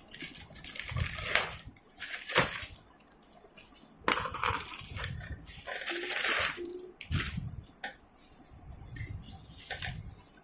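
Packaging of a book parcel being handled and opened: irregular crinkling and rustling with a few sharp clicks and low handling thumps.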